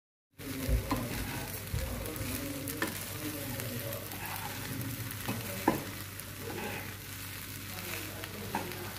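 Biryani rice frying in a nonstick kadai on a gas stove while a spatula stirs and turns it, with a few sharp clicks of the spatula against the pan. It starts about half a second in.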